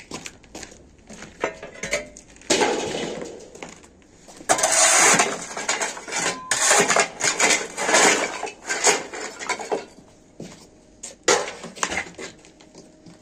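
Broken masonry and tile shards scraping and clattering on a concrete floor under a long-handled demolition tool, in loud stretches with many sharp knocks, easing off near the end.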